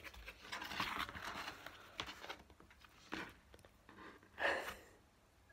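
Packaging being handled and opened, rustling and crinkling in a series of short bursts, the loudest about four and a half seconds in.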